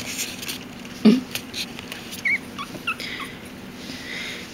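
Pomeranian puppy whimpering in a few tiny high squeaks, with a short louder sound about a second in. Blanket rustling as the puppy is handled.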